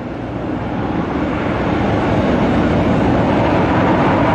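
Jet airliner's engines running at high power, a steady loud roar that grows louder over the first couple of seconds and then holds.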